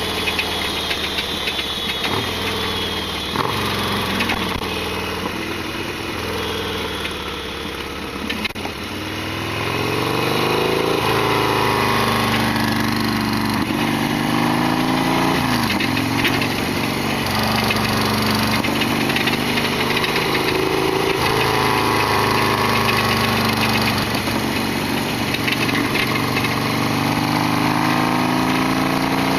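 Harley-Davidson Sportster XL1200R's 1200 cc V-twin running under way, easing off for a few seconds, then pulling harder about ten seconds in, its pitch rising and falling with the throttle through the rest.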